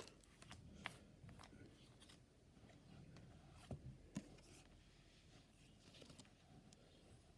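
Near silence with faint, scattered clicks and light rustles of trading cards being handled and sorted by hand.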